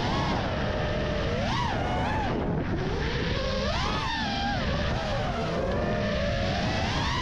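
FPV freestyle quadcopter's brushless motors and propellers whining, the pitch swelling and dropping several times as the throttle is punched and eased through turns, over a steady rush of air.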